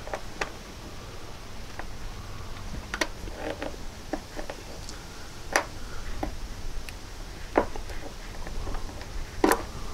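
Small screwdriver clicking and scraping against the lower door hinge pin and its C-clip on a 1999–2006 Chevy/GMC truck as the clip is worked off: a few sharp clicks a couple of seconds apart, with smaller ticks between, over a faint low rumble.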